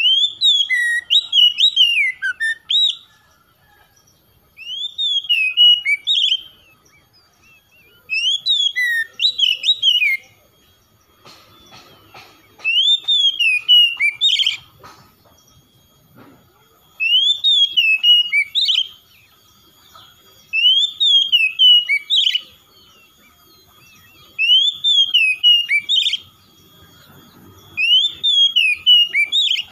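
Oriental magpie-robin singing in full voice: about eight loud phrases of sliding whistled notes, each about two seconds long, repeated every three to four seconds.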